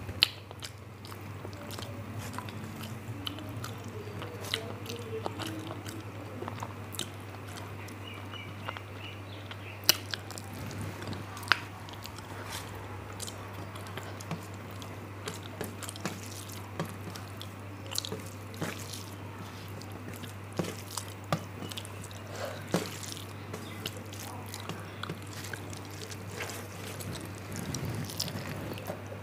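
Close-up chewing and mouth sounds of a person eating rice and fish curry by the mouthful, with many short sharp smacks and clicks scattered throughout. A steady low hum runs underneath.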